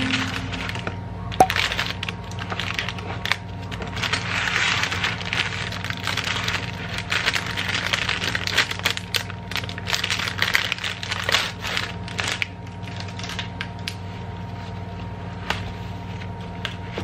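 Clear plastic packaging bag crinkling and crackling as it is handled and pulled open, with many sharp crackles. About twelve seconds in it eases off to quieter handling with a few clicks. A steady low hum runs underneath.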